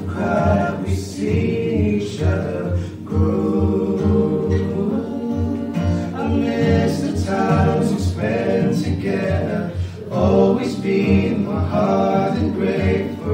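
Live singing accompanied by a strummed acoustic guitar keeping a steady beat.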